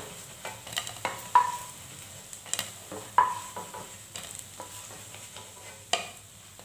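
Banana-and-semolina fritters frying gently in mustard oil in a kadai, a faint steady sizzle, while they are lifted out with a spatula that knocks sharply against the pan a dozen or so times, a couple of the knocks ringing briefly.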